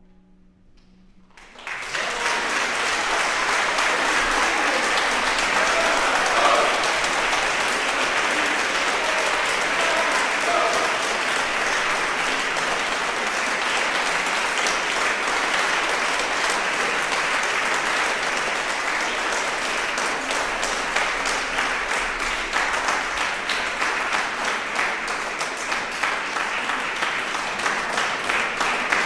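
Concert audience applauding, starting suddenly about two seconds in after a moment of near silence as the duduk and harp piece ends, then holding steady.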